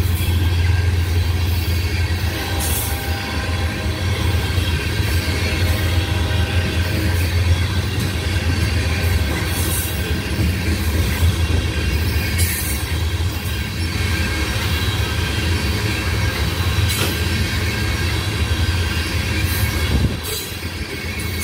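Loaded ethanol tank cars of a freight train rolling past close by: a steady low rumble of steel wheels on rail, with clicks over the rail joints and thin wheel squeal at times.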